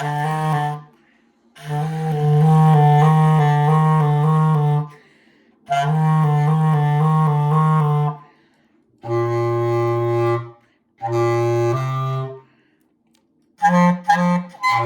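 A solo woodwind instrument playing a band part in low notes: six short phrases of held and repeated tongued notes, broken by rests of about a second.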